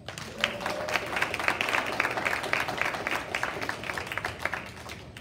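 Audience applauding: a crowd's clapping that starts right away and dies out near the end.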